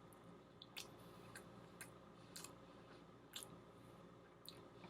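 Near silence with a few faint, short clicks scattered irregularly through it.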